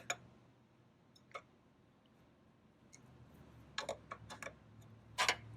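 Scattered metallic clicks and knocks of a wrench working the lawnmower blade nut loose: single clicks near the start, a quick run of clicks about four seconds in, and a louder knock near the end.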